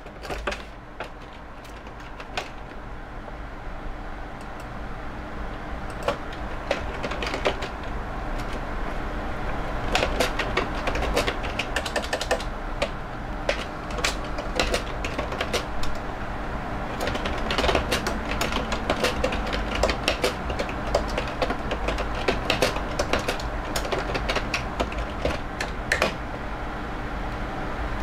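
Rapid, irregular clicks and taps in bursts over a steady low hum, thickest in the second half and growing gradually louder.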